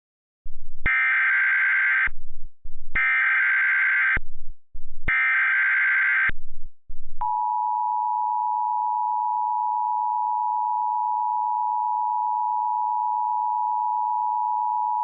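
Emergency Alert System header announcing a tornado warning: three bursts of SAME digital data, each about a second long and heard as a harsh buzzing screech, then about seven seconds in the steady two-tone EAS attention signal, held for about eight seconds.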